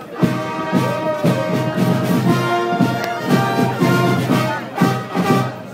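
Brass band playing a tune with sustained horn notes over a steady beat.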